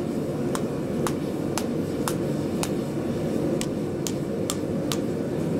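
Light hand-hammer blows on a hot axe head on an anvil, about two a second with a short break past the middle, driving the steel bit into the split cleft of a wrapped-eye axe. A steady low rumble sits underneath.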